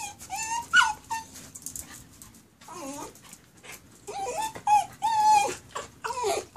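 West Highland white terrier whining: a string of short, high-pitched whimpers, some sliding up and down in pitch, with a lower drawn-out whine about three seconds in.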